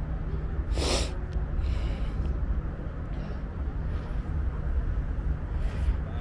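Street ambience heard from a moving bicycle: a steady low rumble of wind and road noise, with a few short hissing puffs, the loudest about a second in.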